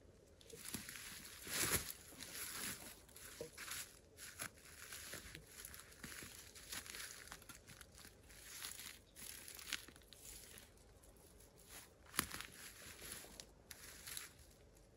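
Rustling and crackling of leaves and stems as a person pushes through dense undergrowth picking blackberries, with small snaps scattered throughout. The loudest crackles come about two seconds in and again about twelve seconds in.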